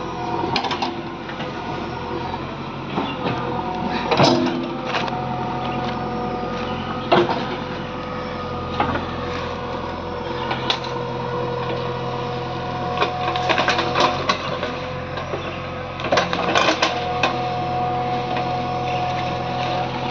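JCB 3DX backhoe loader's diesel engine running steadily, with a higher whine that comes and goes in stretches as it works. Several sharp clanks ring out over it, a few at a time.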